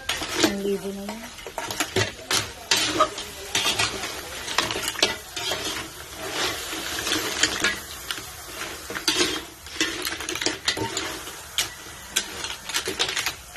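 Metal ladle stirring a wok full of clams: shells clatter and scrape against the aluminium pan in an irregular run of clicks.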